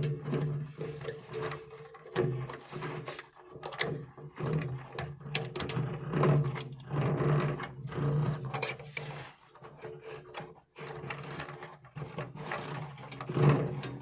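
Irregular scraping, rubbing and knocking of hand work on a fitting, over a steady low hum.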